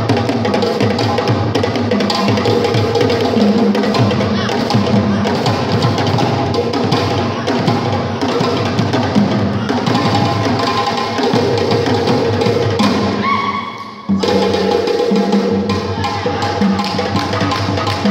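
Djembe drum music with a steady, driving rhythm. It dips briefly about three-quarters of the way through, then comes back at full level.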